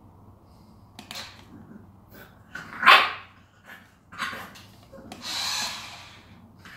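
French bulldog barking in short separate bursts at a remote-control toy car, the loudest bark about three seconds in.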